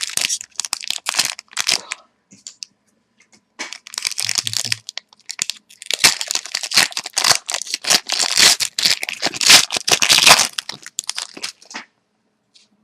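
A trading card pack's wrapper being crinkled and torn open by hand, in several bursts of crackling with the longest in the second half.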